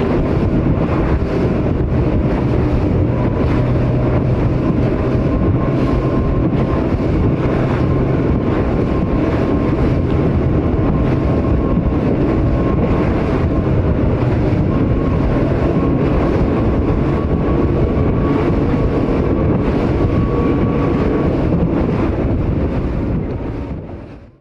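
Loud, steady rush of wind on the microphone and water noise from a boat moving fast on the water, with a faint steady hum underneath; it fades out near the end.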